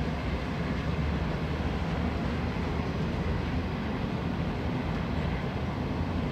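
Steady low rumble of a freight train on the line.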